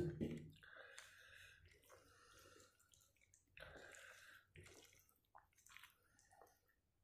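Fingers squeezing and mixing cooked rice with potato egg curry on a plate, making faint, soft wet squishes in several patches. There is a brief thump right at the start.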